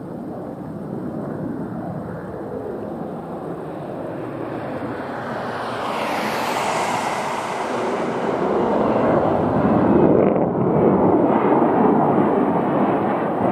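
F-4 Phantom II's twin J79 turbojets running on a low, gear-down approach, a steady jet noise that grows louder and peaks about ten seconds in.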